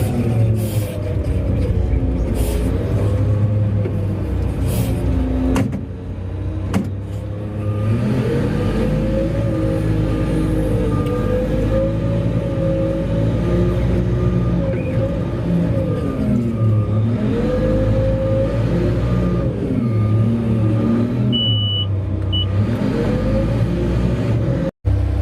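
Heavy mining machinery at work: the diesel engines and hydraulics of a Liebherr R 9200 excavator loading a Komatsu HD785 haul truck, a deep rumble whose engine pitch rises and falls repeatedly with the load. A faint regular beeping runs through the middle, and the sound cuts out briefly near the end.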